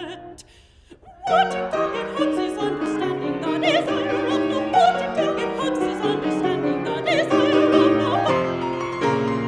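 Classical soprano singing with wide vibrato to piano accompaniment in an art song. About a second in, the music breaks off briefly, then voice and piano come back in together.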